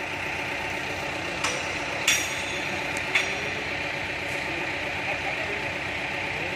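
Bulldozer's diesel engine running steadily while working sand, with three sharp metallic clinks in the first half, typical of the tracks or blade.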